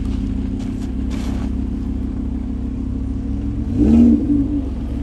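Lamborghini Huracán's V10 engine through an aftermarket Fi exhaust, running steadily at low speed, with a short rev that swells and rises in pitch about four seconds in.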